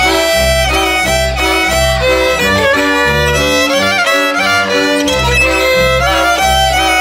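Live band music with a fiddle carrying the melody over a bass line that repeats in a steady beat.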